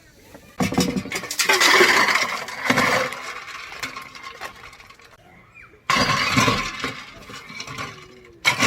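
Loud clattering and clinking, as of things being handled and knocked together, coming in three bouts: starting suddenly about half a second in, again about six seconds in, and briefly near the end.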